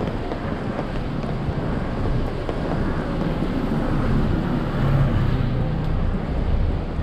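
Street traffic on a wet road: a steady rush of car noise with a low engine hum that swells about two thirds of the way through, and wind on the microphone.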